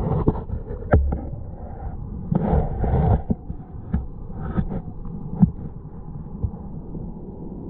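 Muffled underwater sound of a stream picked up by a submerged camera: a steady low rumble of moving water, with scattered knocks and clicks and a rougher rush of noise about two to three seconds in.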